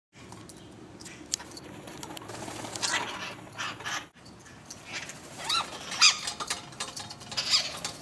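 Red-masked parakeets (cherry-headed conures) giving a series of harsh, high screeching calls. The calls are sparse at first and come thick and fast in the second half.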